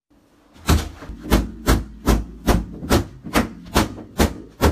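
A stick repeatedly whacking an inflatable vinyl punching bag, sharp blows about two and a half a second, starting about half a second in.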